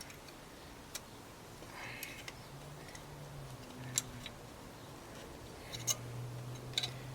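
A few short, sharp clicks spaced a second or more apart, as a metal cable tie is pulled tight with a small pair of pliers.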